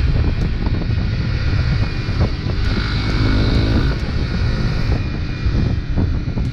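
Honda CRF250 Rally's single-cylinder engine running at road speed, with wind rushing over the microphone.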